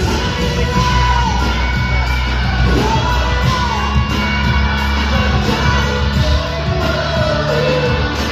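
A singer performing live with a band, recorded from the audience in a concert hall: steady bass under the sung melody.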